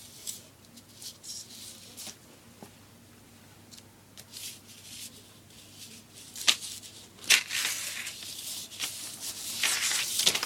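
Paper rustling and crinkling in short bursts as a cat plays with it, with two sharp crackles about six and a half and seven seconds in and busier rustling near the end.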